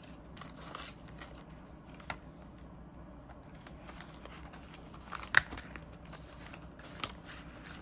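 Paper banknotes and a clear vinyl binder pouch being handled: soft rustling and crinkling with scattered light clicks, and one sharper click about five seconds in.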